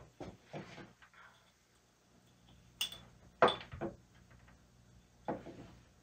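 A few sharp clicks and knocks, the loudest cluster about halfway through: a power resistor and multimeter test probes being handled and set down on a wooden workbench.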